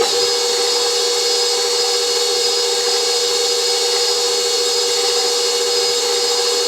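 KitchenAid Pro 600 stand mixer running steadily at speed 2 with an attachment fitted: an even motor whine with a thin high-pitched tone above it.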